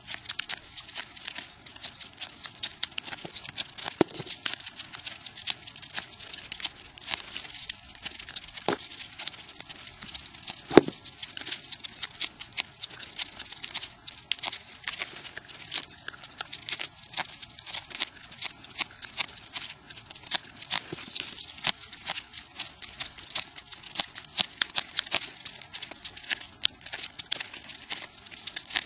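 Folded paper units of a 3D origami model rustling and crackling as fingers push them into place, a dense run of rapid clicks sped up. A few louder knocks stand out about 4, 9 and 11 seconds in.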